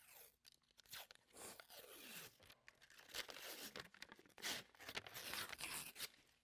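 Paper label being peeled and torn off a cardboard tube of refrigerated biscuit dough: quiet, irregular tearing and crinkling rustles with small clicks.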